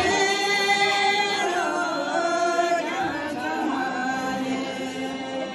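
A group of women's voices singing together unaccompanied, in long drawn-out notes.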